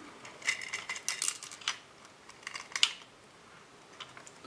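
Light plastic clicks and rattles as the circuit board and its attached wiring are lifted out of a plastic radio-transmitter case, a cluster in the first two seconds and a few more near three seconds, the sharpest about three seconds in.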